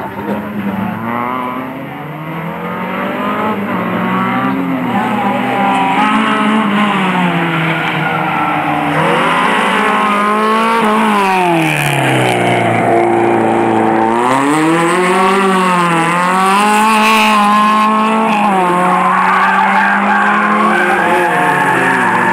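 Peugeot 205 race car's Mi16 16-valve four-cylinder engine revving hard around a tight circuit, its pitch repeatedly climbing and dropping through gear changes and braking for corners. It grows louder over the first few seconds as the car approaches, and drops lowest about twelve seconds in before climbing again.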